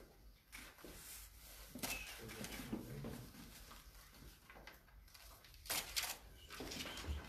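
Sheets of paper rustling as signed documents are handled and turned over on a table, with a few short sharp clicks about two seconds in and again near six seconds.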